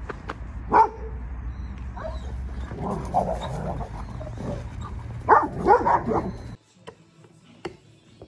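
Dogs barking and yipping during rough play: one sharp bark about a second in, a few more around three seconds, and the loudest run of barks between five and six seconds, then the sound drops away to a quiet room near the end.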